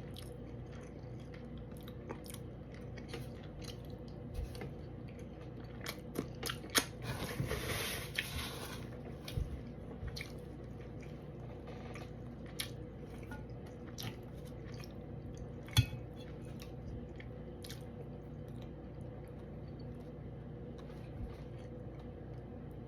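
Close-up chewing and eating of fish, with scattered small clicks and a denser crunchy, rustling stretch about seven to nine seconds in.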